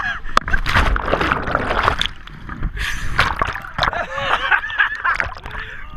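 Water splashing and sloshing around a whitewater raft, mixed with short shouts and cries from the people aboard.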